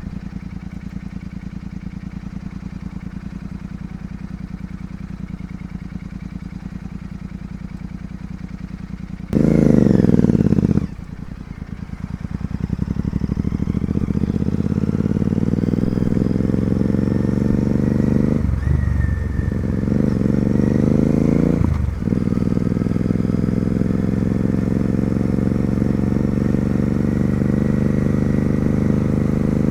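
Royal Enfield Continental GT 650's parallel-twin engine through an Ixil aftermarket exhaust, idling steadily, then blipped hard once about nine seconds in. It then pulls away, the engine note climbing as it accelerates, with two brief breaks in the pitch that fit gear changes.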